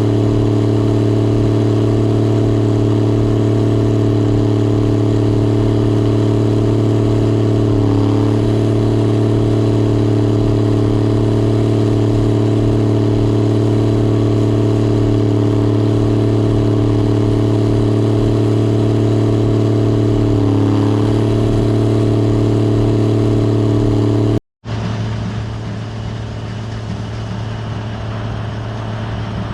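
Gleaner R72 combine running steadily, a loud constant drone with a strong low hum. About 24 seconds in, the sound breaks off for an instant and comes back quieter.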